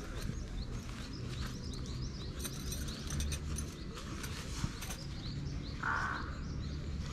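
Outdoor ambience: small birds chirping repeatedly over a steady low rumble, with scattered faint clicks and one brief louder sound near the end.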